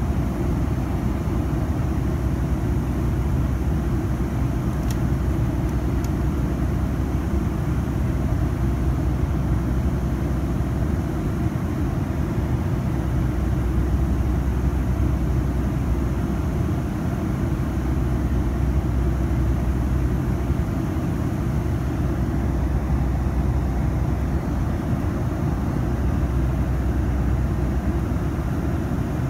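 Steady cabin noise aboard a Boeing 757-200 airliner: an even, rushing drone of engines and airflow, mostly a low rumble, holding constant throughout.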